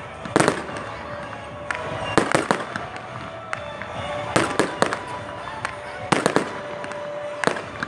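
Fireworks display: shells bursting in sharp bangs and crackles that come in clusters every second or two, several in quick succession at times.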